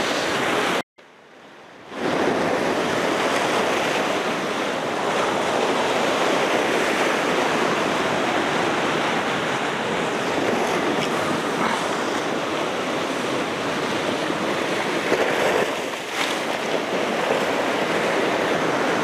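Sea surf breaking and washing over shoreline rocks: a steady rush of water. The sound drops out for about a second shortly after the start.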